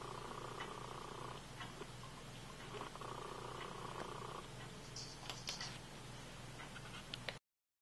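Disc sander's electric motor running with a low, steady hum; a few faint clicks come near the end, and the sound cuts off suddenly just before the end.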